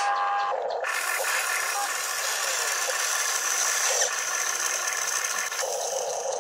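Radio-controlled excavator's small electric motors and gearboxes whining as the boom lifts and the arm swings a bucket of dirt. The note shifts a few times as one movement gives way to the next.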